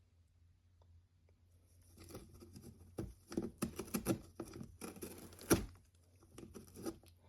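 A cat biting and chewing a cardboard box. There are irregular crunching and tearing sounds of cardboard, starting about two seconds in, with one sharper, louder bite a little past the middle.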